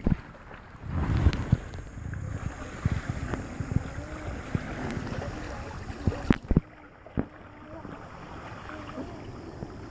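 Shallow creek water rippling and splashing close to the microphone, with a few sharp knocks a little past six seconds in.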